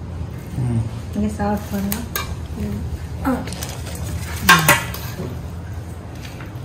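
Steel serving spoon scraping and clinking against a stainless steel pan and steel plates while food is dished out. Two sharp metallic clinks about four and a half seconds in are the loudest, and soft voices murmur in the background.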